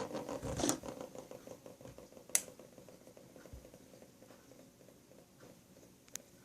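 Faint handling noise of the electric pressure cooker being touched and moved, with a sharp click about two seconds in and a smaller click near the end.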